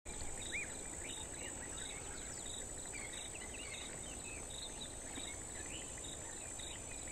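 Faint natural ambience: a steady high insect drone with birds calling over it, one giving a short chirp repeated a little faster than once a second and others adding scattered whistled notes.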